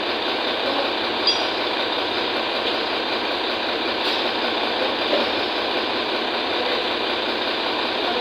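Steady mechanical noise like an engine running, unchanging throughout, with one brief high metallic ping about a second in.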